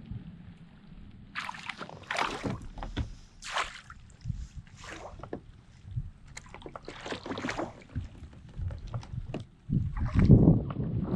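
A small hooked bass splashing at the surface beside a kayak in short bursts while it is reeled in. A louder flurry of splashing and knocking comes near the end as the fish is brought alongside.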